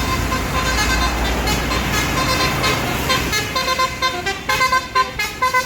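Indonesian tour bus's basuri musical horn playing a quick tune of short stepped notes over the bus engine's low running; the notes grow louder and clearer about halfway through as the engine sound drops away.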